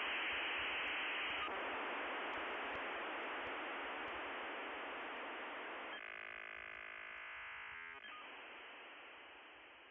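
Steady static hiss, narrow-band like an open telephone line. About six seconds in it gives way to a buzzy steady multi-tone for about two seconds, then the hiss returns and fades out.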